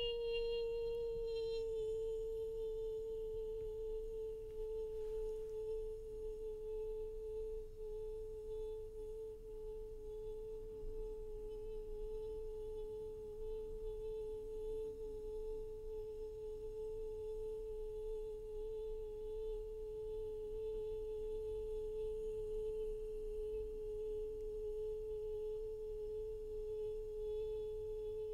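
A young woman's voice holding one long, steady high note on the drawn-out end of 'yee boi', so smooth it is almost a pure tone; its brighter overtones fade away about two seconds in while the note itself carries on.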